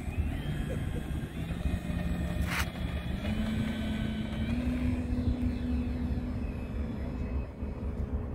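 Electric motor and propeller of an FMS Pitts Special 1400 V2 RC biplane throttling up for takeoff. Its hum and whine rise in pitch in steps as the plane rolls out and climbs away, over a steady low rumble, with one sharp click about two and a half seconds in.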